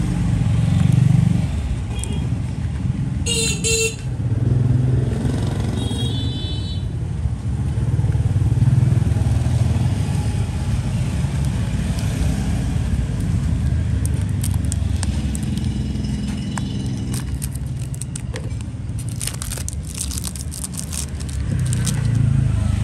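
Steady motorbike and car traffic noise, with two short horn toots about three and a half and six seconds in. A run of sharp clicks follows later.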